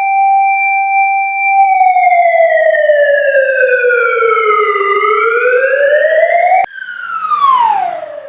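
Siren sound effect with a slow wail: it holds a steady pitch, sinks slowly over about three seconds, then climbs again and cuts off abruptly about six and a half seconds in. A falling glide follows and fades out near the end.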